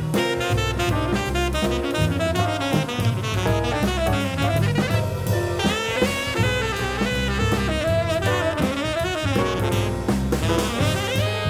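Jazz background music, a saxophone line over a drum kit.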